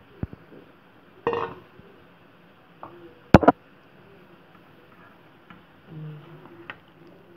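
Kitchen utensils knocking and clinking against a pan and dishes: a handful of separate sharp clinks, the loudest a quick double strike about three and a half seconds in.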